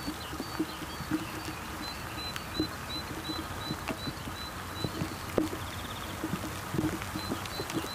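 Rain dripping and pattering in irregular plinks and small ticks, with a bird repeating a thin high note about three times a second through the first half and again near the end.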